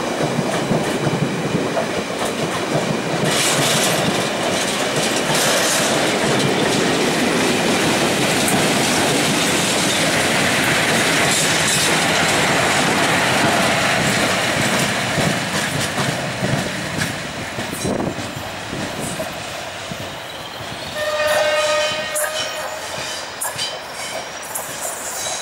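Train of London Underground S Stock cars hauled by Class 20 diesel locomotives passing close by, wheels clattering over rail joints; the rear Class 20's English Electric diesel engine goes past about halfway through, and the sound then fades as the train draws away. Near the end a train horn sounds once, briefly.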